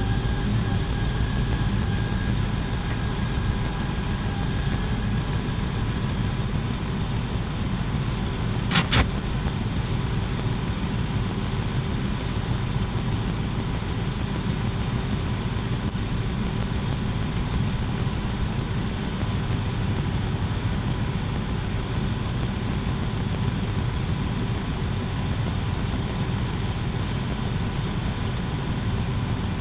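Steady low mechanical rumble, like an engine running continuously, with one sharp click about nine seconds in.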